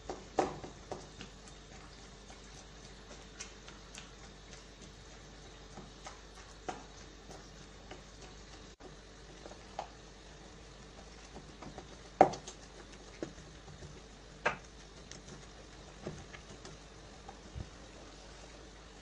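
Wooden spatula mashing and stirring cooked tapioca with grated coconut in a steel pot: scattered soft knocks and scrapes against the pot, the loudest about twelve seconds in, over a faint steady hum.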